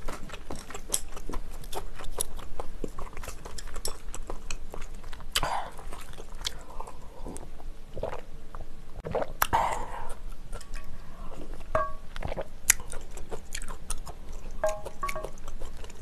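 Close-miked mouth sounds of someone chewing soft shellfish, a steady run of small wet clicks. Two louder, fuller sounds come about five and a half and nine and a half seconds in, around a sip from a glass of water.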